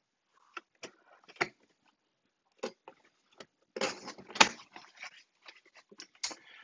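A box and its packing being handled: scattered light knocks and clicks, with a louder burst of rustling and a sharp knock about four seconds in.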